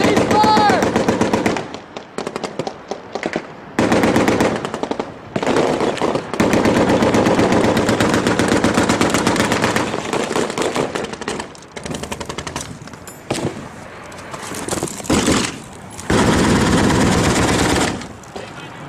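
Automatic machine-gun fire in long, rapid bursts of several seconds each, the longest about four seconds. Scattered single shots and short bursts fill the gaps between them.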